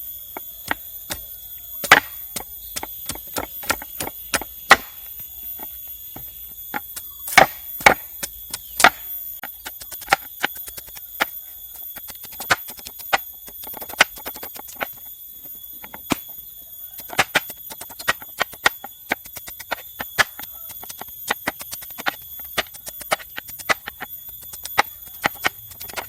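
Bamboo being chopped and worked: irregular sharp knocks, at times several a second, over a steady high-pitched insect drone.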